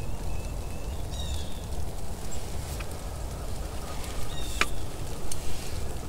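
Blue jays calling in the distance, a few short calls early on, over a low steady rumble; one sharp click about four and a half seconds in.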